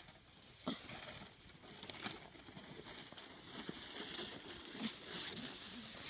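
Faint footsteps crunching in snow with a plastic sled scraping along behind, in irregular soft steps that grow louder as they come closer.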